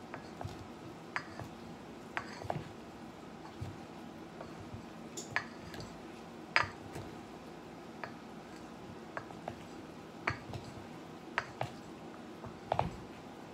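Wooden salad servers tossing a salad in a stainless steel mixing bowl: irregular light knocks and clinks as they strike the bowl.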